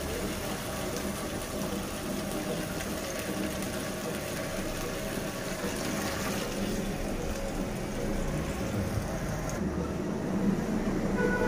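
Water poured from a small clay bowl into a clay cooking pot of fried potatoes and masala, over a steady hiss.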